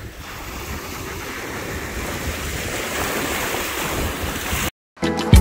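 Small waves breaking and washing up over a rocky coral-rubble shore, a steady surf wash that swells gradually louder, with wind rumbling on the microphone. It cuts off abruptly near the end, and music starts.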